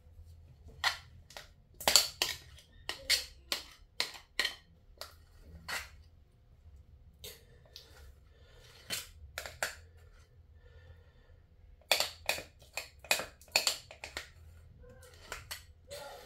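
Metal spoon clicking and scraping against a ceramic mixing bowl as thick cake batter is scraped out: a series of sharp clicks in irregular bursts, with a lull just past the middle.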